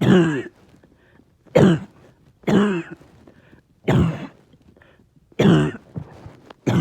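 A person coughing repeatedly: six harsh, voiced coughs, one every second or so, each about half a second long. It is a persistent cough that has gone on all day, with chest pain.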